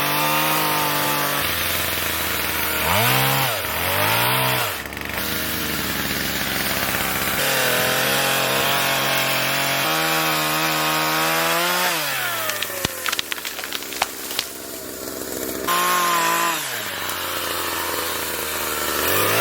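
Gas chainsaw cutting trees. The engine revs up under load and drops back to idle over and over, in several short cut-together clips. About two-thirds of the way in, a run of sharp snaps and crackles comes over the idling engine.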